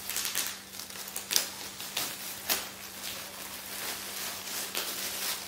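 Crinkling and tearing of shiny gift wrapping as a package is unwrapped, with scattered sharp crackles and clicks.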